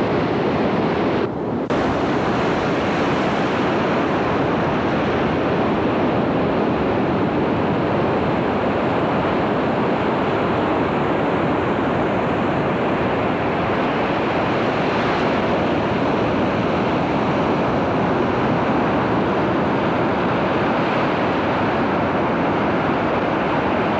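Steady rushing noise of ocean surf, mixed with wind on the microphone; it dips briefly about a second and a half in.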